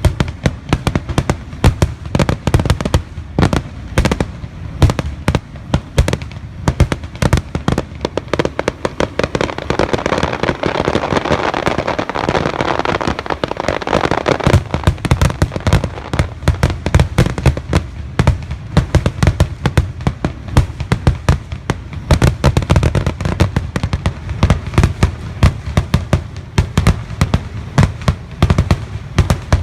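Fireworks going off in a rapid, continuous barrage of bangs and pops, with a thicker crackling hiss in the middle, about ten to fifteen seconds in.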